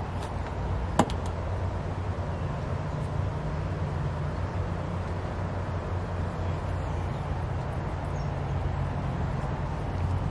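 Steady low hum of an above-ground pool's filter pump running, with one sharp click about a second in.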